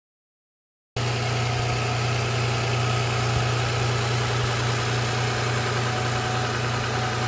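Replacement Toyota 2GR-FE 3.5-litre V6 in a 2008 RAV4 idling steadily. It cuts in abruptly after about a second of silence.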